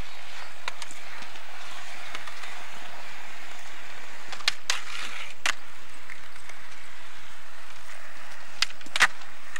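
Urethane skateboard wheels rolling on smooth concrete with a steady hiss, broken by sharp clacks of the board: a pair about four and a half seconds in, another a second later, and two near the end. The last, loudest pair is the tail popping and the board landing.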